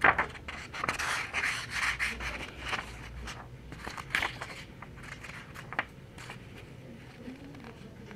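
Scratchy rubbing and scraping noises mixed with small clicks and knocks. A sharp knock right at the start is the loudest, the noises are busiest over the first four seconds or so, and they thin to scattered faint ticks.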